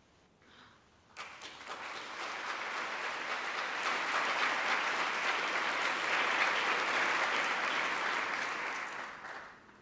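An audience applauding: clapping begins about a second in, builds, and dies away near the end.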